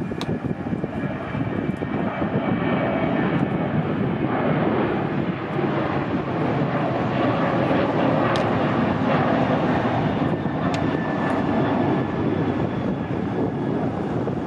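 Boeing 737 jet engines at takeoff power as the airliner climbs out: a steady rushing engine noise with a faint whine in it. It builds over the first couple of seconds, is loudest in the middle and eases slightly near the end.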